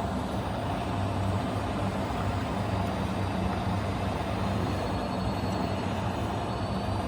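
Radio-controlled model truck or construction machine running, a steady mechanical hum with a low drone that does not change.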